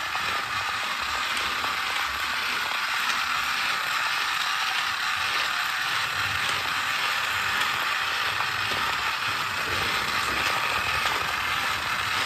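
Battery-powered shark toy car driving itself along, its small motor and plastic gears giving a steady rattling whir.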